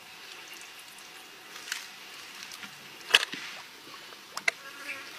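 Handling noises as slimy fish are pulled from a split coconut: a few sharp clicks and knocks, the loudest about three seconds in and a quick pair near the end.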